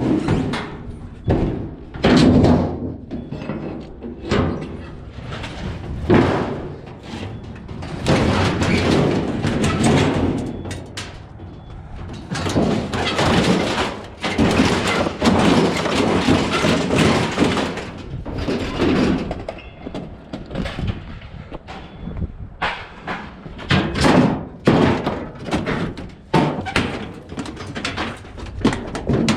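Repeated knocks, thumps and bangs of scrap and junk being handled and tossed, with a longer stretch of scraping and rustling noise in the middle.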